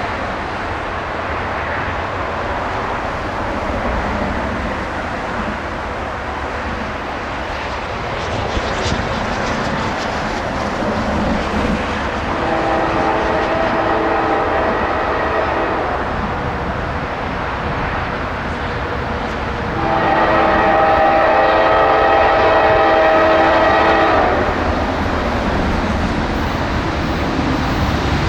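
A train running past with a steady rumble, its horn sounding two long blasts about twelve and twenty seconds in, each a chord of several tones, with a third blast starting at the very end.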